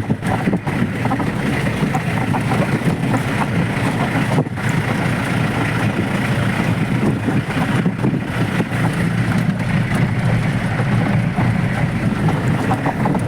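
Jeep driving along an off-road track: steady engine and road rumble, with wind on the microphone.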